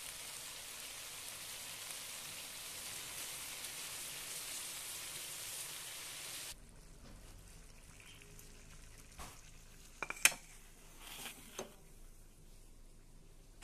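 Onion, tomato and ketchup sauce sizzling in a wok as a steady hiss, which cuts off abruptly about halfway through. After that come a few short clicks and knocks, the sharpest about ten seconds in.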